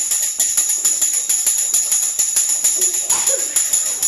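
Tambourine beaten in a fast, even muiñeira rhythm, its jingles ringing on every stroke; it starts suddenly.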